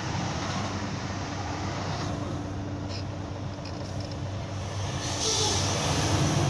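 Scania 113 truck's six-cylinder diesel running steadily, heard from inside the cab on a slow downhill run. About five seconds in the road noise grows louder and a hiss joins it.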